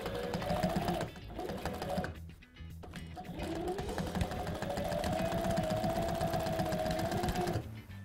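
Industrial sewing machine stitching the seam allowance of a car seat cover: two short bursts, a brief pause, then a longer run of about four seconds whose motor whine rises as it gets up to speed, over the rapid rattle of the needle strokes. It stops sharply near the end.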